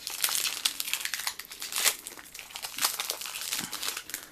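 Crinkling of a Magic: The Gathering booster pack's foil wrapper as it is handled and opened, in a quick, irregular crackle.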